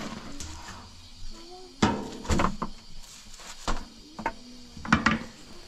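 A series of sharp knocks and clatters, about half a dozen, bunched in the middle and near the end, with faint pitched sounds between them.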